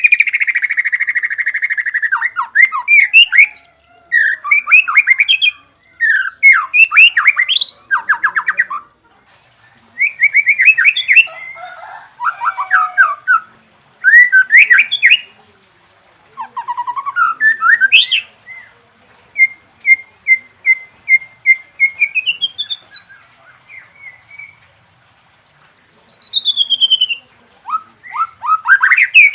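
White-rumped shama singing a long, varied song of quick trills, chirps and whistled notes packed with mimicked phrases ("isian"), broken by short pauses. A run of evenly repeated notes climbs in pitch about two-thirds of the way through, followed by a falling series of whistles.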